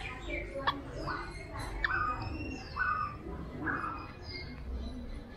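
Baby monkey giving a few short, high squeaky calls, about four, spaced roughly a second apart.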